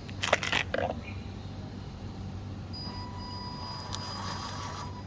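Drive motor and gearbox of a handmade all-metal 6x4 RC truck running as it drives, a thin steady whine setting in about three seconds in, with a few short knocks near the start.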